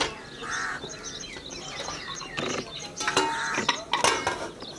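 Irregular light clicks and taps of fresh okra being cut with a small knife and handled over a plate and a plastic basket, with small birds chirping in the background.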